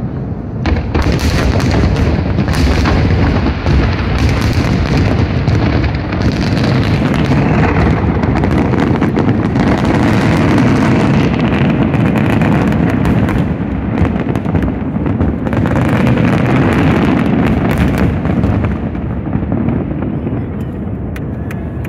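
Fireworks finale: a dense, unbroken barrage of aerial shell explosions and sharp bursts, thinning out in the last few seconds.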